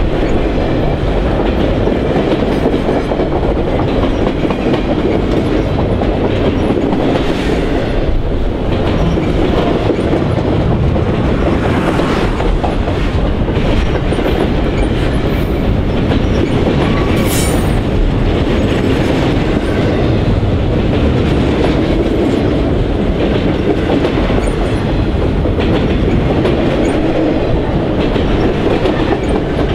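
Freight train of loaded flatcars rolling steadily past at close range: a continuous loud rumble of steel wheels on the rails. A brief high wheel squeal cuts in about two-thirds of the way through.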